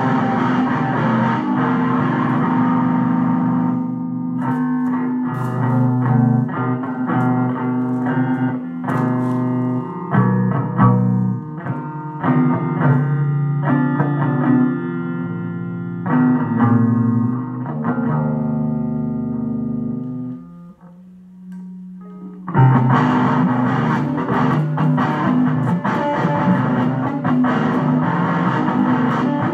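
Electric guitar played through an amplifier with distortion. Heavy strummed chords open the passage, then single notes and short riffs follow, and after a brief low held note about 21 seconds in, the heavy chords come back.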